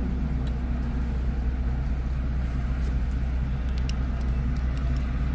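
A vehicle engine idling: a steady, even low rumble.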